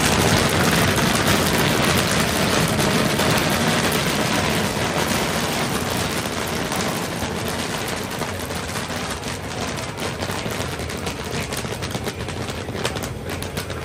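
Kettle corn popping in a large cast-iron kettle as it is stirred with a wooden paddle: a dense rattle of popping kernels that grows quieter and thins out toward the end.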